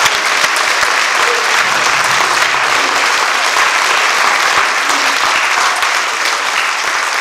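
Congregation clapping and applauding, a dense, steady run of many hands that is louder than the preaching around it.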